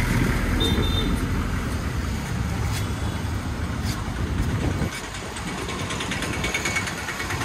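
Town street traffic: a motor vehicle's engine running close by, its low rumble dropping away about five seconds in, over general road noise.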